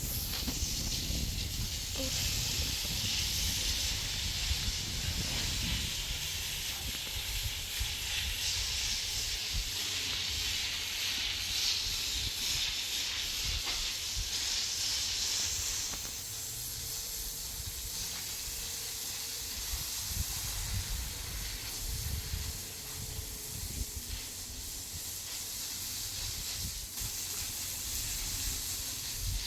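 Steady hissing noise over a fluctuating low rumble; the hiss eases somewhat about halfway through.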